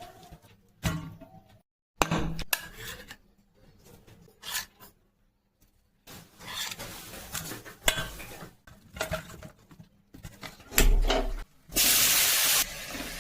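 Cooking utensils scraping, stirring and clattering in a pan, in several short separate bursts. Near the end a loud hiss starts suddenly, then settles to a steadier hiss.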